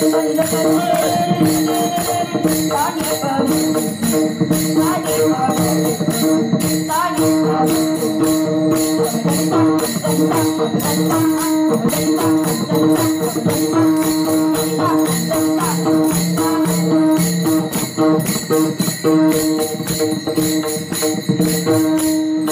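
Warkari bhajan music: a group of small brass hand cymbals (taal) clashing together in a steady quick rhythm over a sustained drone and melody.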